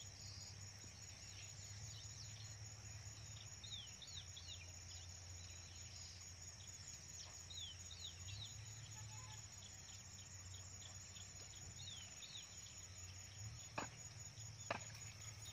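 Faint outdoor ambience: small birds chirping in short, repeated calls over a steady high insect drone. Three sharp clicks sound near the end.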